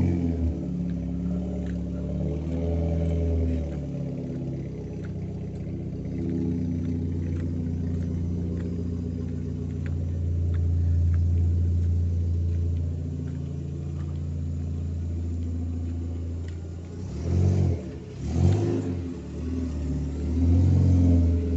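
Citroën C4 with a sport exhaust, engine running at a steady low idle note, then blipped twice in quick succession about three-quarters of the way through and revved up again near the end.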